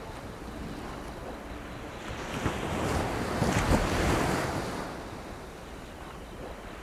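Sea waves washing onto a shore, one surge building to a peak about halfway through and then draining away, over a low rumble of wind on the microphone.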